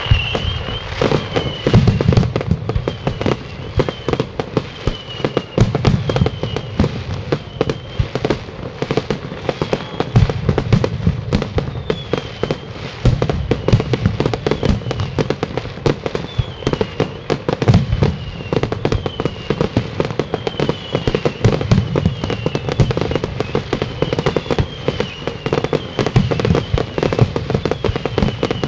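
Fireworks display: a continuous barrage of aerial shell bursts, many sharp bangs and crackles a second, with no pause.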